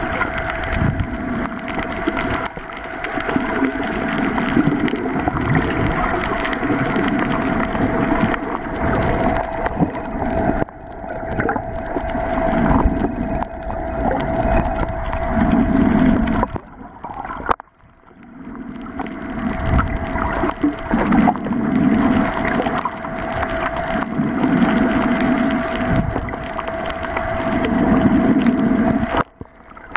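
Muffled underwater noise picked up by a camera held under the sea surface: a steady hum over swishing water, with a low rushing swell every few seconds. It drops out briefly twice.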